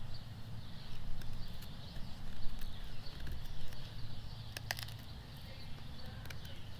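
Morakniv Garberg knife carving a notch into hard dead wood: scattered sharp cuts and cracks as the blade bites, the loudest a little before five seconds in, over a low steady rumble.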